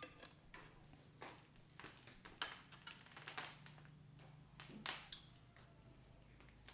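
Faint clicks and taps of alligator-clip test leads being handled: clipped onto a speaker terminal, then picked up and dropped on a wooden table. A low steady hum runs underneath.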